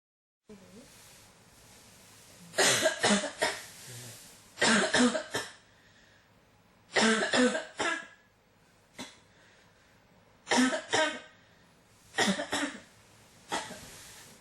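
A person coughing in repeated fits: about seven bouts, most of them two or three quick, harsh coughs in a row, spaced a second or two apart. The later bouts are fainter.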